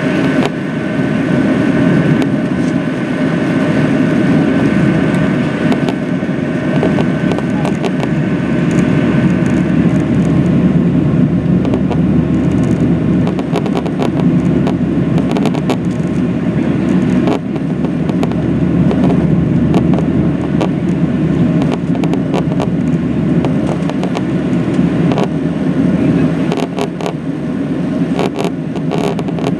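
Cabin noise of a Boeing 737-700 climbing after takeoff: its CFM56-7B jet engines and the airflow make a loud, steady rumble, with a thin high whine that fades out about ten seconds in. A few light clicks and rattles come near the end.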